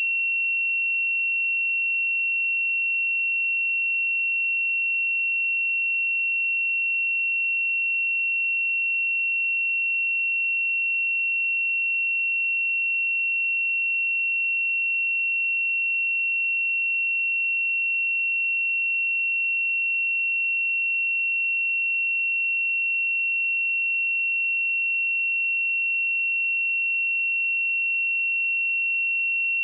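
A pure 2724 Hz sine-wave test tone, one steady high-pitched note held without change.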